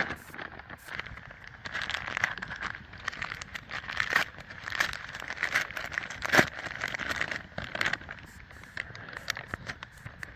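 Dense, irregular crackling and snapping, with one sharp pop louder than the rest about six seconds in: a wood campfire crackling, mixed with the crinkle of plastic food packaging being handled and opened.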